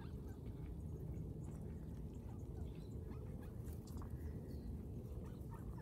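Mallard ducks foraging in dry grass: faint, scattered pecking and rustling clicks over a steady low rumble, with a sharper click at the very end.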